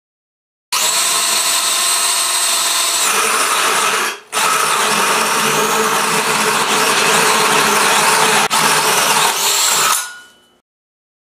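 DeWalt 18-volt cordless drill spinning a hole cutter through sheet material, a steady whine with cutting rasp. It starts just under a second in, stops for a moment about four seconds in, runs on, and winds down near the end.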